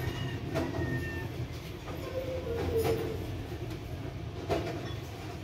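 Domestic cat purring: a steady low rumble, with a few short faint higher sounds and light knocks over it.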